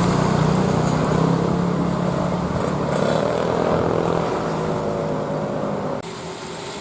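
Tour bus engine running close by, a steady low drone, with no horn tune sounding; the sound drops abruptly about six seconds in.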